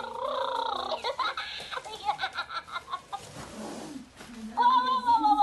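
Peek-a-boo baby doll's built-in sound unit playing a recorded baby voice: high-pitched babbling and giggles, with a louder drawn-out call near the end.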